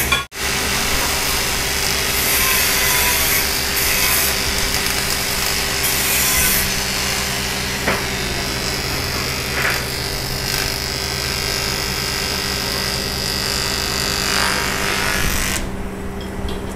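Electric arc welding on a cracked aluminium alloy wheel: a steady, rough hiss over a low electrical hum, stopping about a second before the end. A brief cut-out right at the start.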